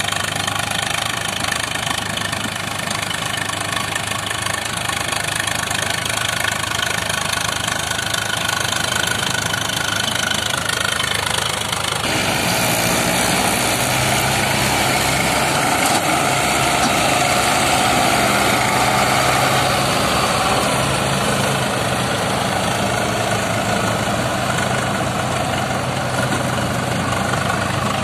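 Tractor diesel engines running steadily, the sound changing abruptly about twelve seconds in.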